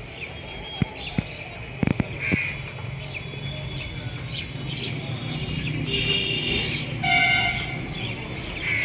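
Outdoor ambience with birds chirping. A few sharp clicks come in the first two seconds, and a short vehicle horn honks about seven seconds in.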